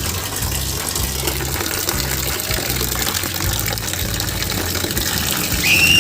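Steady rush of running or gushing water, with a music beat underneath and a short high squeak near the end.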